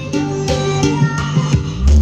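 Music with a plucked, guitar-like melody and deep bass, played through a home-built miniature sound system with a 12-inch CLA subwoofer box and a 6-inch midrange. A long, heavy bass note comes in near the end.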